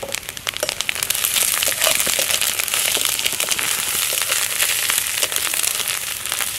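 Onion, garlic and ginger spice masala frying in hot oil in a metal kadai, stirred with a metal spatula: a steady sizzle full of fine crackles that grows louder about a second in.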